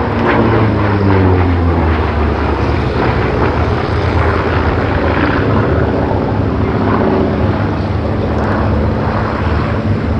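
Grumman F8F Bearcat's Pratt & Whitney R-2800 radial engine and propeller running at high power in a display flypast, the pitch dropping over about the first second as it passes, then a steady drone.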